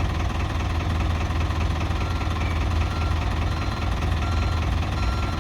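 Ford backhoe loader's engine idling steadily, with an even low rumble.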